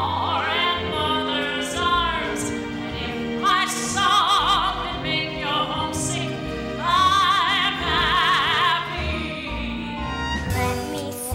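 Musical-theatre song: a woman sings long, wavering notes with a wide vibrato over a pit orchestra.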